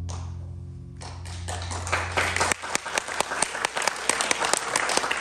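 The tango music's last held low note fades away. Audience applause breaks out about a second in and builds into steady clapping.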